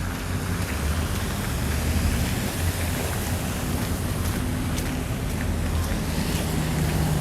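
City street traffic rumbling past in the snow, mixed with wind buffeting the microphone: a steady noisy wash with a heavy low rumble that swells and eases.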